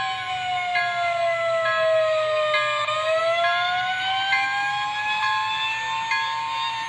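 Electronic fire siren from a model train's DCS-controlled sound module, wailing in one slow sweep: its pitch falls for about three seconds, then rises again.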